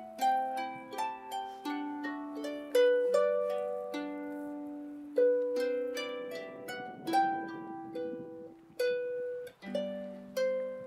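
Celtic harp playing background music: single plucked notes and chords that start sharply, ring on and overlap one another.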